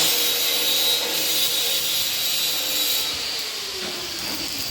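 Electric arc welding: the arc gives a steady, hissing crackle.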